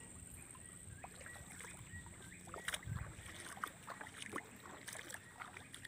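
Faint, scattered light splashes and ticks of shallow floodwater, with one soft low thump about three seconds in.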